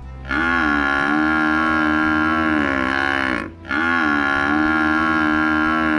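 Water buffalo lowing: two long, drawn-out calls of about three seconds each, the pitch dipping at the start of each and then held level.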